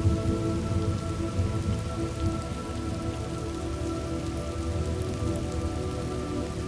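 Steady rain with a continuous low rumble beneath it, and faint held tones in the background.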